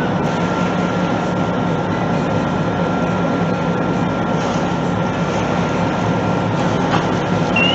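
Steady drone of a 63-foot Blackwell sportfishing boat's engines running under way, mixed with the rush of wind and water. A faint thin whine runs through it, and a short rising chirp comes right at the end.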